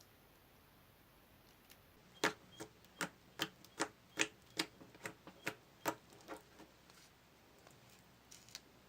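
Homemade glue slime set with sodium tetraborate, squeezed and stretched in the hands, giving a run of sharp clicking pops about two to three a second. They start about two seconds in and die away after about six seconds.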